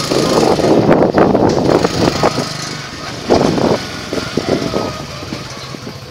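Small motor scooter riding along the road: engine and road noise with irregular buffeting, louder in the first half and easing off after about four seconds.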